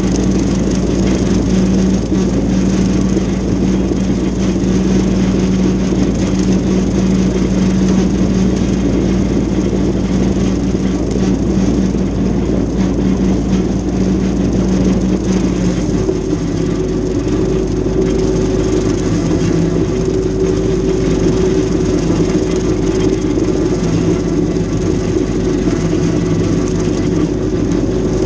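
Mahindra tractor's diesel engine running steadily under load while it drives a rotary brush cutter (brushhog) mowing tall field grass. The steady drone shifts to a higher tone about halfway through.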